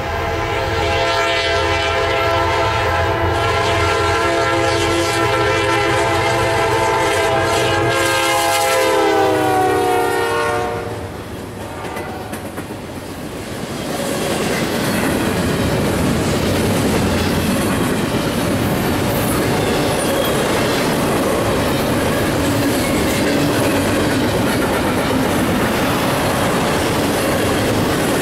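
Freight locomotive horn blowing one long chord for about ten seconds, the chord dropping in pitch as the lead GE Dash 9-40CW passes. After a short lull comes the steady rumble and rattle of a long double-stack intermodal train's cars rolling by.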